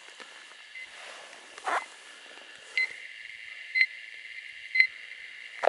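Mammut Barryvox avalanche transceiver in search mode giving short, high beeps about once a second as it picks up another transceiver's transmit signal. A brief whoosh a little under two seconds in.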